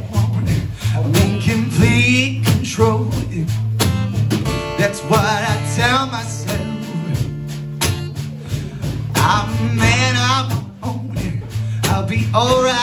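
A live acoustic duo playing: a man singing, with an acoustic guitar and a small drum kit of snare, bass drum and cymbal played with sticks.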